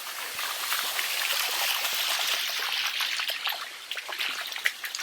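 Shallow water running and trickling over the rock of a waterfall, with many small splashes.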